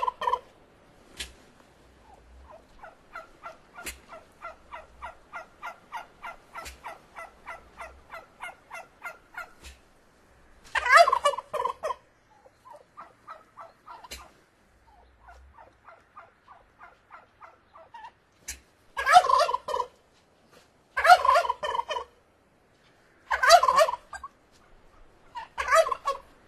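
Turkeys calling: a long run of soft, evenly spaced calls, about two or three a second, then loud rattling gobbles, five of them in the second half, with quieter calls between.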